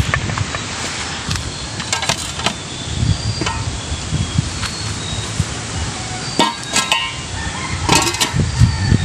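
Handling noise from carrying a metal basin of husked corn, with rustling and several sharp knocks and clanks of the basin, a cluster of them about six and a half to eight seconds in.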